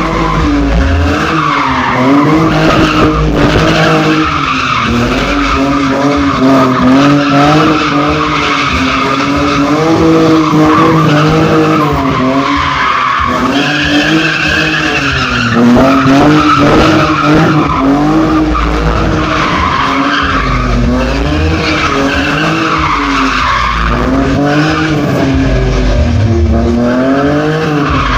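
Drift car's engine revving up and down over and over, about once a second, while its tyres skid and squeal. A higher tyre screech stands out about halfway through.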